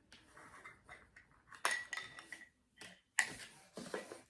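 Handling noise of a small camera and its plastic parts: soft rattles and taps, with two sharper clicks, one a little before halfway and one about three seconds in.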